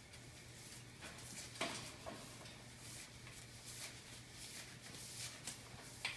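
Young blue-and-gold macaw flapping its wings against a tiled floor while scrambling at a low metal bar: faint feather rustles and a few soft knocks, the loudest about a second and a half in, over a low steady hum.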